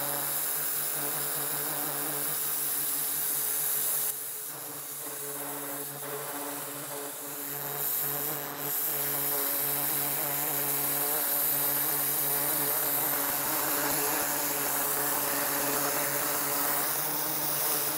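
Güde GHD-225 electric pressure washer running, a steady motor-and-pump hum with the hiss of the turbo rotor nozzle's water jet blasting a wooden chair. The level drops about four seconds in and dips again briefly near eight seconds.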